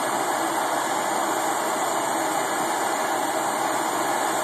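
Flame of a Bethlehem Barracuda glassworking torch burning with a steady, even hiss as it heats the glass.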